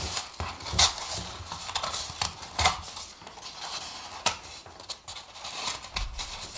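Paper cup being handled while the last bits of its cut-out base are torn away: scattered crackles and several sharp snaps of stiff paper.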